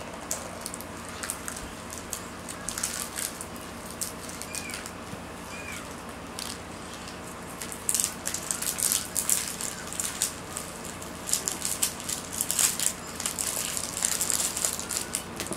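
Hard plastic 5 Surprise capsule ball clicking, rattling and scraping under small hands that twist and pry at it, trying to get it open. The clicks come much thicker from about eight seconds in.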